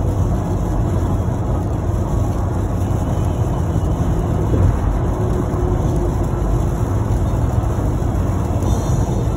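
Steady, low road rumble inside a car's cabin at expressway speed on a rain-wet road: tyre and engine noise.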